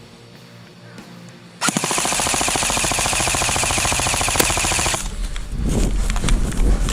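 Airsoft electric rifle firing one long full-auto burst, a rapid, even rattle of shots lasting about three and a half seconds and starting about a second and a half in. After it, irregular knocks and thuds.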